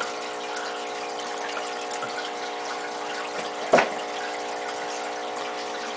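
Aquarium pump humming steadily, with water splashing and trickling in the tank. A single sharp knock comes a little under four seconds in.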